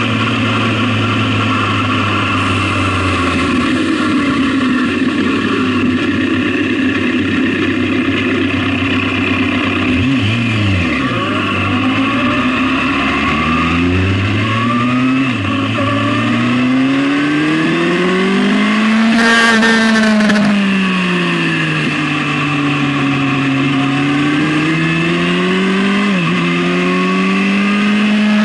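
Suzuki GSX-R sport bike's inline-four engine heard from on board while riding. It eases off about ten seconds in, then revs up to a high pitch past the middle, drops back, and climbs again after a quick dip near the end, under steady wind noise.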